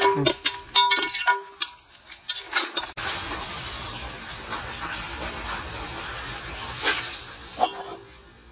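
Sliced onions sizzling in hot ghee in an aluminium pot, with a perforated metal skimmer clinking and scraping against the pot as they are stirred. About three seconds in, the scraping gives way to a steady sizzling hiss.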